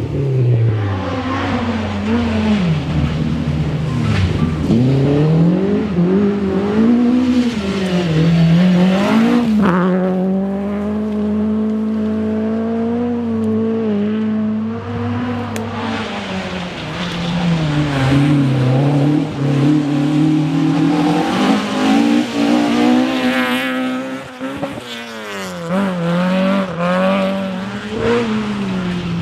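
Historic rally car engine revving hard on a special stage, its pitch climbing and dropping again and again as the driver works through the gears and lifts off for corners.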